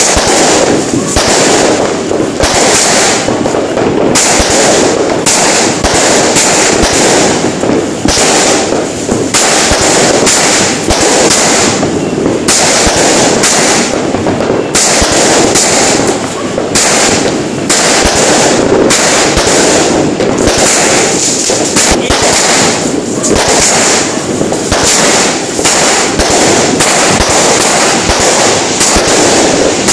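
Fireworks going off in a continuous dense barrage: rapid bangs and crackling, one on top of another, with no pause.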